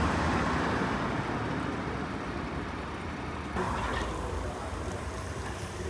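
Road traffic passing on a street: a steady rush of car noise with low rumble, loudest at the start and easing off. The background changes abruptly a little past halfway.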